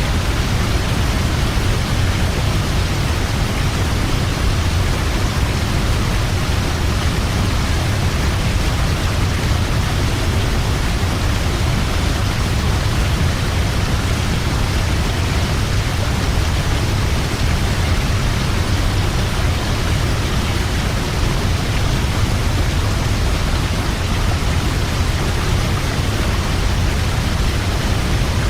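Waterfall: water falling and crashing in a steady, unbroken roar of rushing noise with a strong deep rumble.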